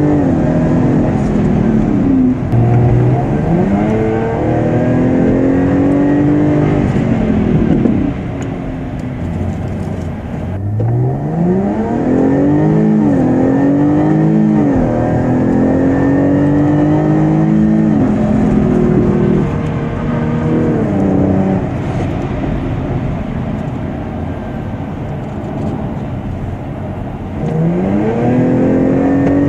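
Jaguar F-Type's supercharged engine accelerating hard through the gears, heard from inside the cabin: the pitch climbs with the revs and drops back at each gear change, over and over. It eases off and runs quieter for a few seconds twice, then pulls up again near the end.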